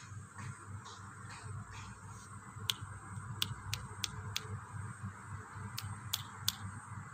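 Fingers snapping to call a puppy: five quick snaps, a pause, then three more, over a steady background hiss.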